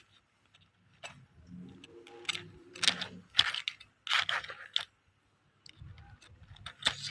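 A cooked crab's shell being broken and picked apart: about half a dozen separate sharp cracks and clicks spread over several seconds.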